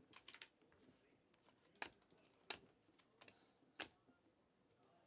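Faint, sparse clicks and taps of Panini Mosaic basketball trading cards being flipped through and set down by hand, with three sharper snaps standing out, spaced about a second apart through the middle.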